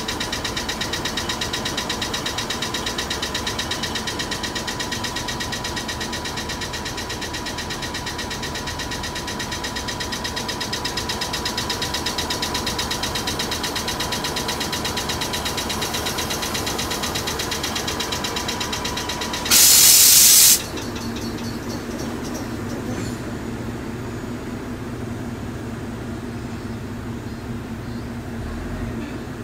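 Oigawa Railway ED90 Abt-rack electric locomotive standing with its onboard machinery running: a fast, even clatter with a steady high whine. About twenty seconds in both stop with a loud blast of air lasting about a second, and a lower steady hum carries on.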